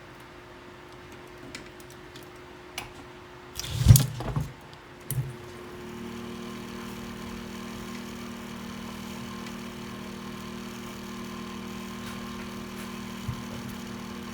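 A few small clicks, then a loud knock with clatter about four seconds in and a smaller knock a second later; about six seconds in a steady low hum with a faint whine starts and keeps going.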